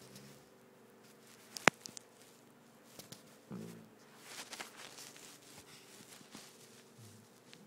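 Labrador retriever snoring in its sleep: three short, low snores about three and a half seconds apart. A single sharp click a little under two seconds in is the loudest sound.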